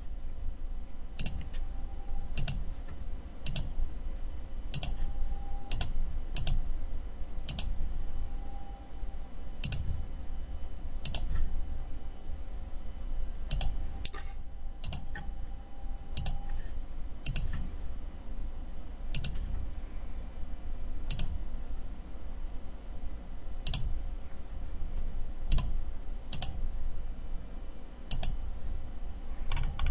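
Computer mouse clicking: about twenty single, sharp clicks at irregular intervals of roughly a second, over a low steady hum.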